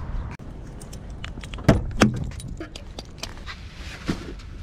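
A bunch of keys jangling: a scatter of light clicks, with two louder knocks close together about two seconds in.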